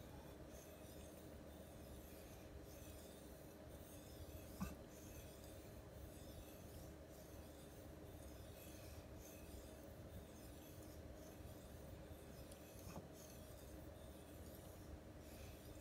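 Faint repeated scraping as a knife blade is stroked back and forth across a wet Suehiro Debado waterstone to polish the edge. Two light clicks stand out, the louder one about a third of the way in and another near the end.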